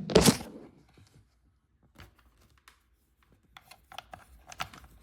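Handling noise: a short knock just after the start, then quiet, then light scattered clicks and rustles over the last second and a half.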